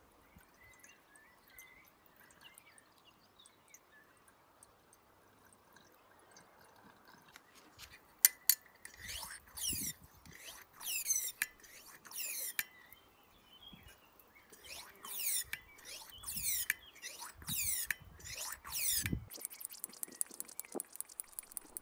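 Hand air pump of an antique brass blowtorch being worked to pressurise the fuel tank. There are about ten strokes in two runs, each a squeaky, hissing sweep falling in pitch. Faint trickling of fuel being poured comes first, and a fast run of ticks near the end.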